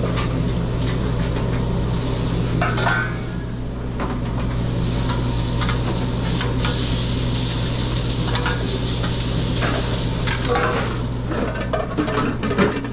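Sausages and chopped onions sizzling on a steel flat-top griddle, with a metal spatula and tongs scraping and clacking on the griddle now and then, most busily near the end. A steady low hum runs underneath.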